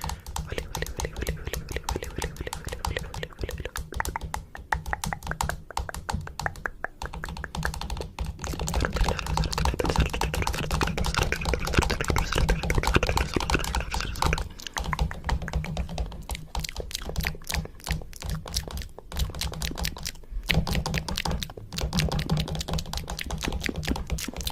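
Rapid, dense clicking and tapping over a steady low hum, with short breaks about 14.5 and 20 seconds in.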